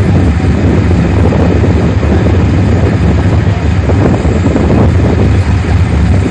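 A loud, steady low rumble from a running vehicle engine, with wind buffeting the microphone.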